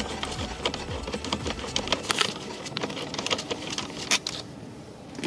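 Quarter-inch ratchet with a Torx T25 socket clicking in quick, uneven runs as a dash speaker screw is backed out. The clicking stops a little after four seconds in.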